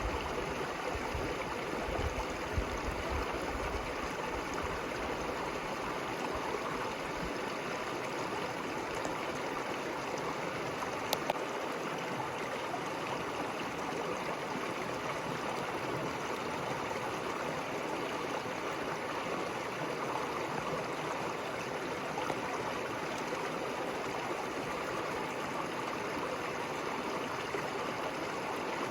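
A river flowing steadily: a constant, even sound of running water.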